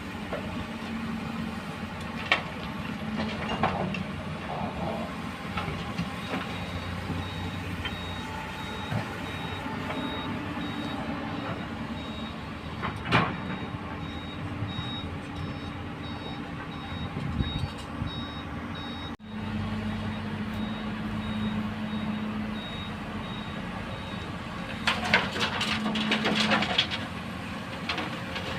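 Excavator diesel engine running steadily while a reversing alarm beeps repeatedly through the middle stretch. Sharp metallic knocks and clanks come a few times, with a cluster near the end.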